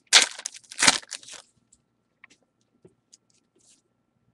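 Baseball card pack wrapper being torn open: two loud crinkling rips in the first second and a half, then a few faint ticks as the cards are handled.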